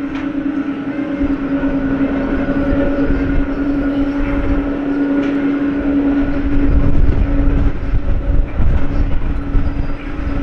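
Boeing 777-200 airliner's jet engines running, a steady hum over a rumble that swells about six seconds in.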